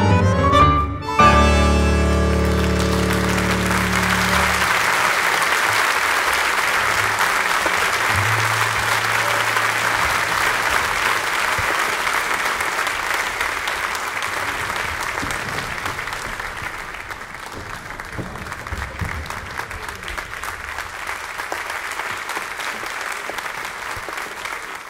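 A tango trio of piano, bandoneón and guitar strikes the final chords of a milonga, the last low chord ringing on for a few seconds. A theatre audience then applauds, the clapping thinning out about two-thirds of the way through.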